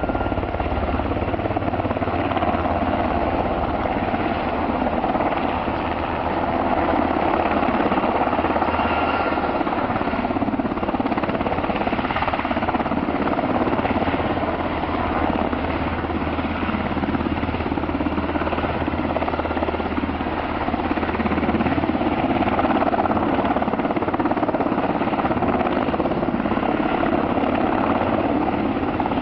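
Firefighting helicopter flying in low and hovering over a lake to dip its slung water bucket, its rotor and engine making a steady, loud noise.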